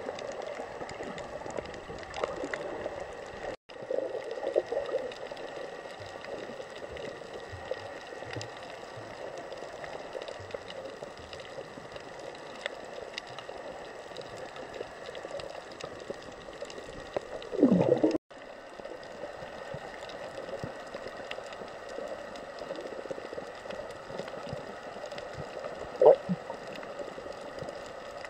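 Underwater sound picked up by a compact camera sealed in a waterproof case: a steady muffled water hiss with faint crackling, a louder gurgle about two-thirds of the way through and a short knock near the end. The sound cuts out twice briefly.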